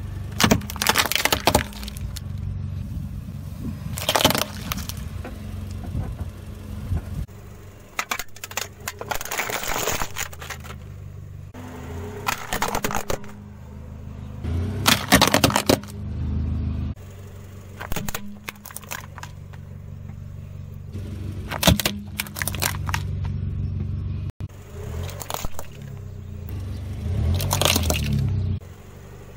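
A car tyre rolls over plastic objects, a toy figure, plastic soap dishes and sunglasses, and crushes them with a series of separate sharp cracks and snaps. Underneath runs the low steady hum of the car's engine.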